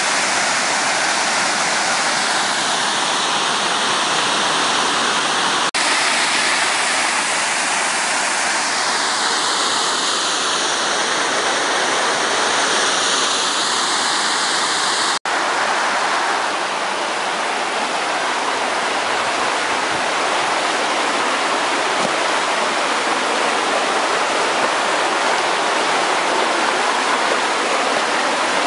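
Mountain waterfall: falling water making a loud, steady rush, with the sound breaking off for an instant about halfway through.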